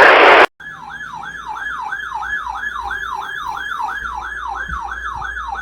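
The end of a harsh, buzzing EAS digital data burst cuts off about half a second in. It is followed by an electronic siren yelp, a tone sweeping up and down about two and a half times a second, which stops near the end.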